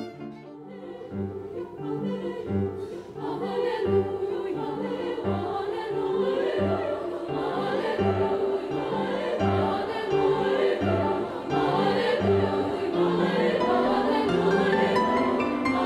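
A choir singing in parts with instrumental accompaniment, over low bass notes that pulse at an even pace. A brief drop just at the start, where the music changes over from the preceding string piece.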